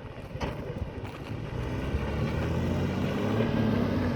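A car driving on a dirt desert track: engine running over road rumble, growing louder about halfway through, with a couple of short knocks within the first second or so.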